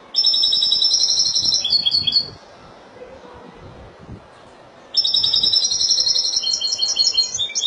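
European goldfinch singing: two bursts of rapid twittering song, each two to three seconds long, the second starting about five seconds in.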